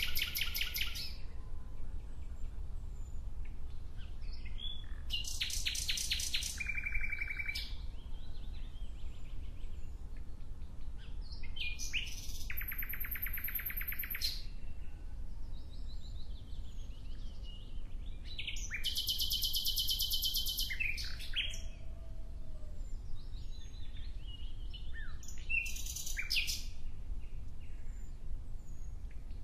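A songbird singing in repeated bouts of rapid, high trilled notes, each about one to two seconds long, coming roughly every six to seven seconds over a steady low hum.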